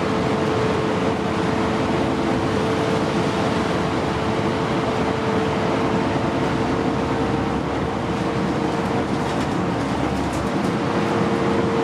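Interior of a 2009 New Flyer D60LFR articulated diesel bus underway: steady engine and road noise with a constant droning hum.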